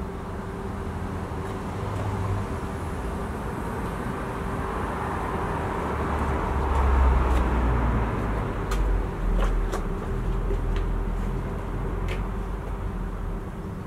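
Outdoor road traffic noise: a steady rumble that swells as a vehicle passes about seven seconds in, with a few light clicks later on.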